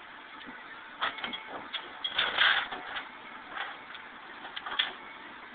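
Irregular mechanical clicks and clanks from tow-truck equipment being worked, the loudest a short rasping burst about two seconds in, over a low steady background.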